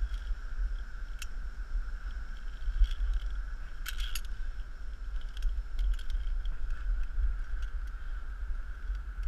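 Steel carabiners on a ropes-course safety cable clinking and scraping in scattered sharp metallic clicks, the loudest cluster about four seconds in, over a steady low rumble on the microphone.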